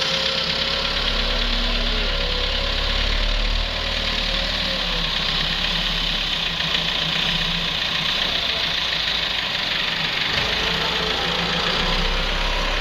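Wheel loader's diesel engine running steadily, its deepest note easing off for a few seconds past the middle and coming back near the end.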